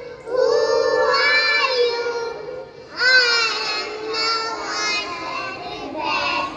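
A group of young children singing an action song together into stage microphones, in sung phrases with a short break about three seconds in.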